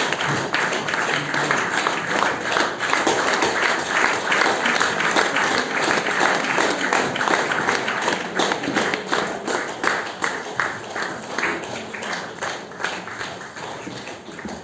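Audience applauding, a dense patter of many hands clapping that thins out and fades over the last few seconds.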